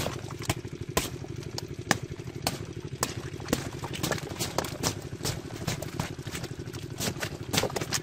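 A small engine idling steadily with a fast, even pulse, with irregular sharp clicks and taps over it.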